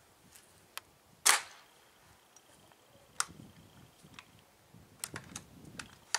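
Airsoft bolt-action sniper rifle firing a BB at the shield: one sharp crack about a second in, followed by scattered lighter clicks and knocks.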